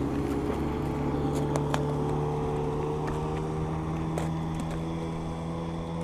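Outboard motor of a motorboat running steadily at speed across the lake, its even hum slowly fading as the boat moves away.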